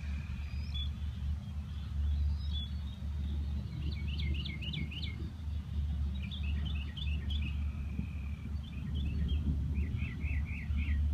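Small birds calling in runs of short, quick, downward-slurred chirps, three bursts of several notes each, over a steady low rumble.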